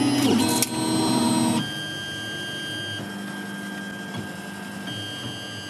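3D printer's stepper motors whining as the head moves through a plotting run, the tone jumping to a new pitch with each move every second or so. Louder for the first second and a half, then steadier and quieter.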